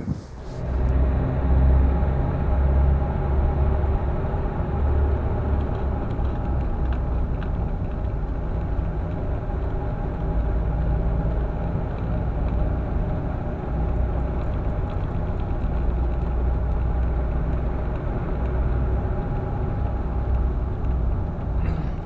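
Car engine and road rumble heard from inside the vehicle while driving, a steady low drone whose engine note shifts now and then.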